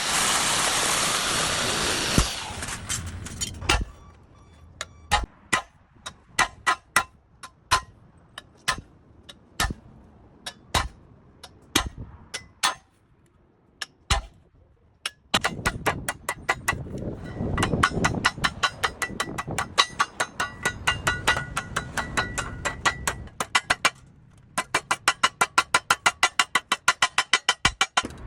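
Hammer blows on metal during rusty car body repair: scattered single strikes at first, then a fast even run of blows near the end, about six a second. A loud rushing noise fills the first two seconds and cuts off suddenly.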